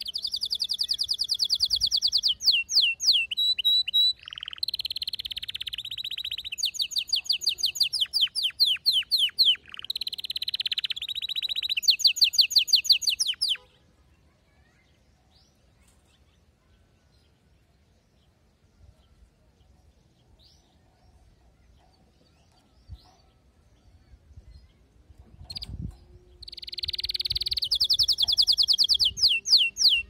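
Domestic canary singing long runs of rapid trills, some very fast and rolling, for about the first 13 seconds. It then falls almost silent and starts another song near the end.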